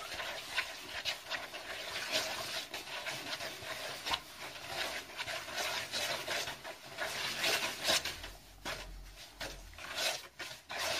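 Hands mixing flour and milk into a dough in a plastic bowl: a run of soft, irregular rubbing and scraping strokes as the flour is worked in against the bowl.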